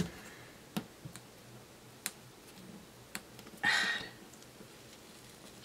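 Fingernails picking at a printed paper sticker on a planner page: a few scattered sharp clicks, then a short papery rasp a little before four seconds in as the sticker peels away.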